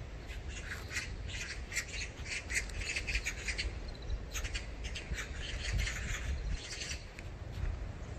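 Birds chirping and squawking in quick runs of high calls that die down near the end, over a low steady rumble.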